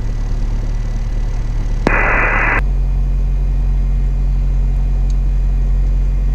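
Cessna 177 Cardinal's piston engine idling just after start, a steady low drone. About two seconds in, a short burst of intercom hiss cuts in, and then the engine picks up slightly to a louder, higher idle.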